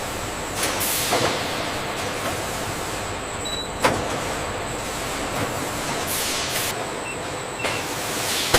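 Steady machinery noise with repeated hissing whooshes and a sharp click about four seconds in.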